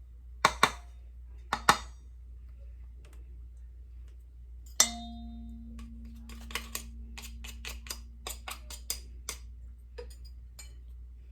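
A spoon knocking against a bowl while marinade ingredients are added: a few light clicks, then one hard strike about five seconds in that leaves the bowl ringing for several seconds, followed by a run of quick light clicks.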